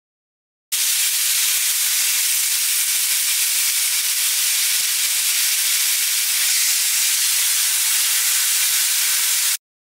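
Marinated beef short ribs sizzling on a very hot ridged grill pan, searing over high heat: a steady high hiss that starts about a second in and cuts off suddenly near the end.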